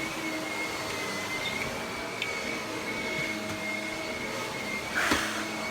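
Vacuum cleaner with a power head running steadily, a high whine over its motor noise. About five seconds in there is a brief louder, scratchy burst.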